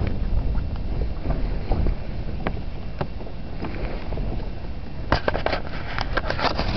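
Steady low rumble on the microphone with scattered faint clicks, then from about five seconds in a run of close rustling and clicking as the camera is handled.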